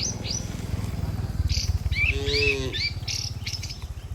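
Small birds chirping repeatedly over a steady low rumble, with a short low moo from a cow about two seconds in.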